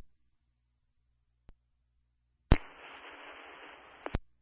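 Two-way fire-department radio channel heard through a scanner feed, silent at first. About two and a half seconds in, a transmitter keys up with a sharp click, then gives about a second and a half of radio hiss with no voice before dropping off with another click.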